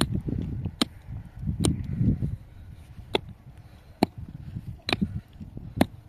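Repeated sharp knocks, about one a second, like a tool striking something hard. A rustling, scraping noise runs under the first two seconds.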